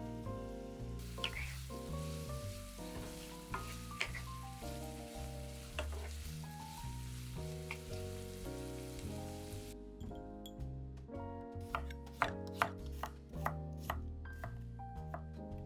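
Food sizzling in hot oil in a frying pan under soft background music; the sizzle stops abruptly about two thirds of the way in, and a quick run of sharp clicks and knocks follows.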